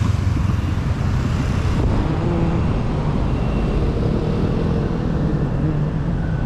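Street traffic: motor scooters and cars running along the road in a steady low rumble.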